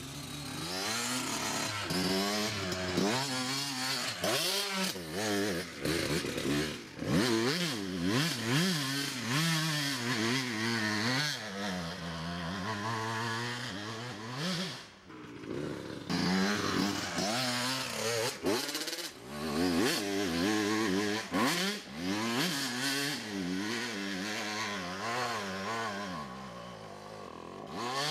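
Kawasaki KX125 two-stroke single-cylinder dirt bike engine revving hard, its pitch rising and falling over and over as it is ridden up a rough hill. It eases off briefly about fifteen seconds in, then picks up again.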